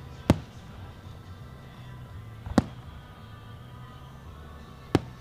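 Fireworks aerial shells bursting: three sharp booms a little over two seconds apart, over steady music.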